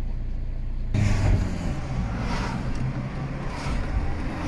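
Car engine and road noise heard from inside the cabin, a steady low hum that suddenly gets louder about a second in.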